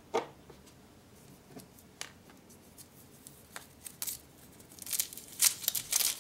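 Printed aluminium foil wrapper of a Zaini chocolate surprise egg crinkling and tearing as fingers peel it off. The foil comes in sharp crackling bursts that thicken and grow loudest in the last second and a half. A single light knock sounds just after the start.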